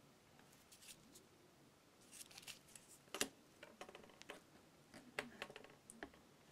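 Faint, scattered taps and clicks of a homemade stylus and fingers on a tablet's touchscreen and of the tablet being handled, the sharpest a little after three seconds in.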